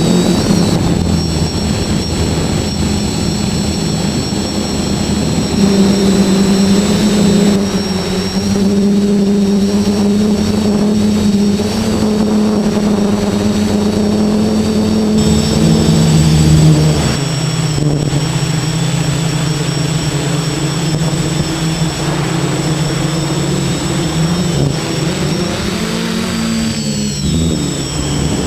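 Hexacopter's electric motors and propellers running in flight: a steady buzzing drone with a high whine. Its pitch shifts as the craft manoeuvres, stepping about five seconds in and again near the middle, then sweeping down and back up near the end. Wind buffets the microphone underneath.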